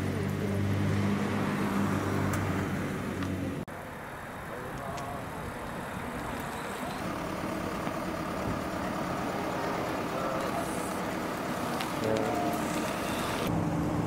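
Road traffic: a motor vehicle's engine hums steadily, then the sound changes abruptly about four seconds in to general traffic noise with faint distant voices. The engine hum returns near the end.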